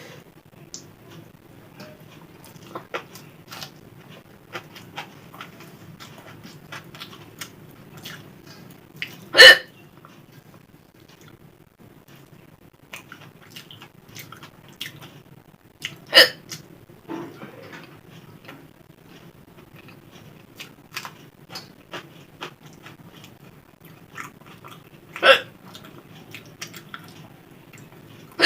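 A person hiccupping loudly three times, several seconds apart, with a fourth hiccup starting right at the end, while eating. Between the hiccups come many small clicks of chewing and mouth noises over a steady low hum.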